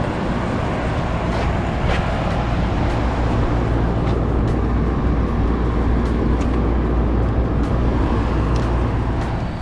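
A running air-conditioning unit making a steady machine hum with a rush of moving air.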